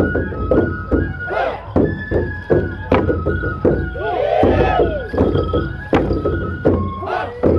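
Japanese festival procession music: a high flute melody of held notes over repeated drum strikes.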